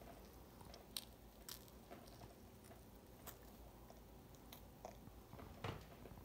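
A baby gnawing and sucking on a soft rice cracker, making faint, scattered wet mouth clicks and smacks, with one slightly louder smack near the end.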